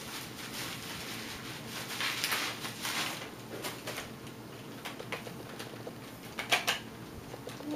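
Bubble wrap rustling and crinkling as it is pulled off a resin ball-jointed doll, with a few sharp clicks near the end.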